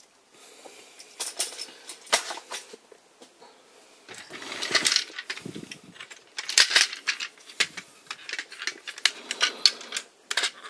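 Hard plastic toy parts being handled and pulled apart: scattered sharp clicks and clacks of snap-fit joints and latches, with a short scraping rustle about halfway through.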